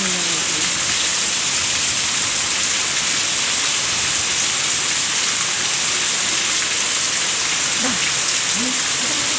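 Heavy rain pouring down steadily onto the ground and roofs, a dense even hiss with no let-up.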